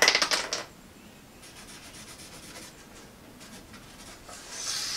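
Pencil scratching marks onto a wooden board: a quick run of short strokes at the start, then fainter strokes a couple of seconds in. A rising rustle comes in near the end.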